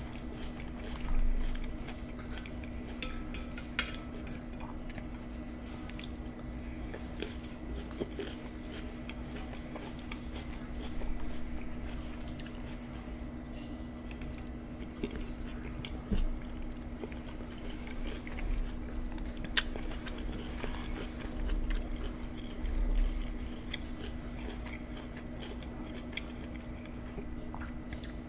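Close-miked eating of deep-dish supreme pizza: forkfuls bitten and chewed with wet mouth sounds, swelling louder now and then. A few sharp clicks, over a steady low hum.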